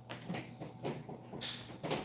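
A cardboard box and its contents being handled: a quick, irregular run of knocks, clicks and rustles, with a sharper knock near the end.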